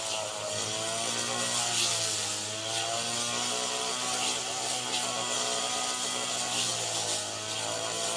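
Engine of a rice harvesting machine running steadily, its pitch dipping and recovering a few times as it takes load, with a hiss over it.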